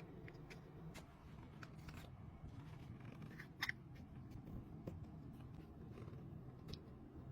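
Faint scattered clicks and light ticks over quiet room tone, the clearest about a third and about two-thirds of the way through.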